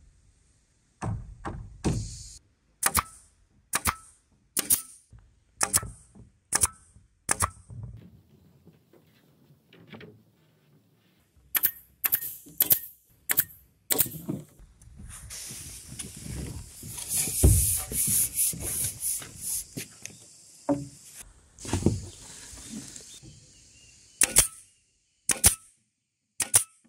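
A run of sharp knocks on bamboo, about one a second, then a cordless drill running against the bamboo poles. The longest run lasts about five seconds, followed by a few short trigger bursts.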